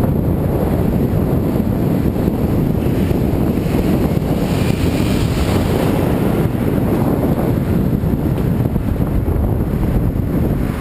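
Wind buffeting the microphone of a hand-held action camera on a moving bicycle: loud, steady noise, strongest in the low range.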